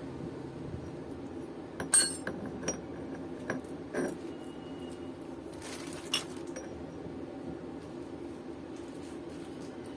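Small metal hand tools and fasteners clinking: one sharp ringing clink about two seconds in, then several lighter taps and clicks, over a steady low hum.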